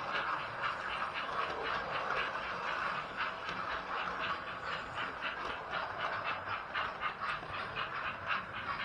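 Train wheels clicking rhythmically over rail joints, about five clicks a second, steady throughout.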